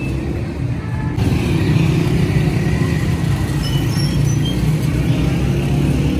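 Street traffic: car and motorbike engines running close by, getting louder about a second in.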